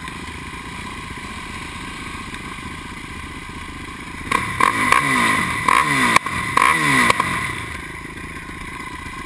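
Single-cylinder 450 four-stroke quad engines idling, then about halfway through three quick throttle blips, the revs rising and falling back each time before settling to idle again.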